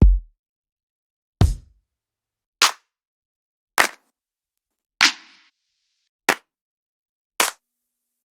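Electronic house-music drum samples played one at a time, about 1.2 s apart: two deep kick drum hits, then a run of snare one-shots. The snare about five seconds in has a longer ringing tail.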